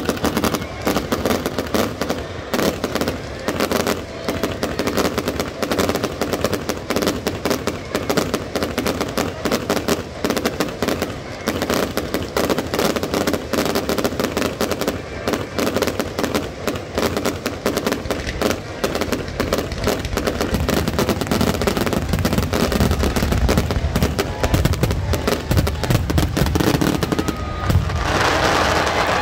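Fireworks going off in a rapid, continuous string of crackling pops and bangs, many a second, from sparking ground fountains and aerial bursts, a little louder near the end.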